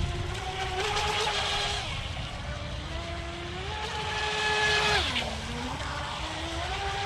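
Brushless electric motor of a Wltoys WL916 RC speedboat whining as the boat runs across the water, its pitch stepping up and down with the throttle. About five seconds in the whine drops low, then climbs again.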